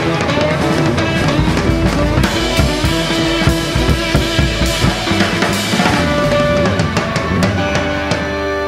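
Instrumental stretch of a song with a drum kit playing a steady beat over bass and pitched instruments.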